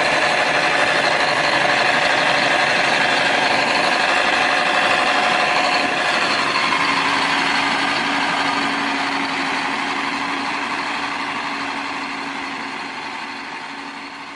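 Diesel engine of a Caterpillar Challenger rubber-tracked tractor running steadily as it pushes snow with a front plow blade. The sound fades out over the last several seconds.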